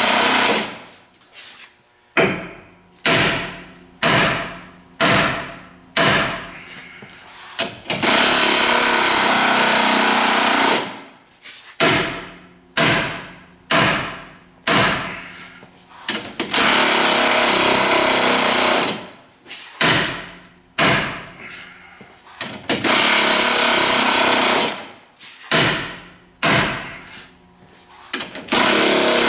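An air tool runs in loud bursts of about three seconds. Between them come runs of single hammer blows on steel, about one a second, each ringing out. A stuck, tight old ball joint is being forced out of the axle.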